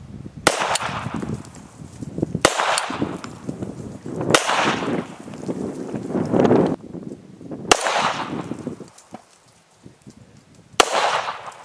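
Shots from a 1911 pistol 3D-printed in stainless steel and Inconel by DMLS, firing .45 ACP rounds: five sharp reports about two to three seconds apart, each trailing off in a ringing echo.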